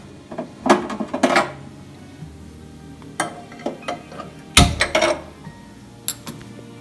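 Non-stick frying pan being set down and shifted on a gas stove's metal burner grate: a series of clanks and knocks of metal on metal, the loudest cluster about four and a half seconds in.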